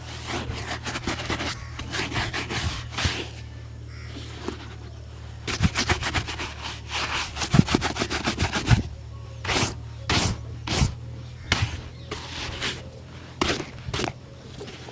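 A shoe being brushed during a shine: short scrubbing strokes of a shoe brush against leather. There is a fast, even run of strokes in the middle, then slower separate strokes, all over a steady low hum.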